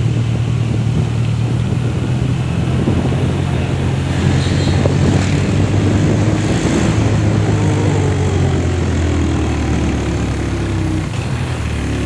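Motorcycle engine running steadily while riding, heard from on the bike, with wind noise over the microphone.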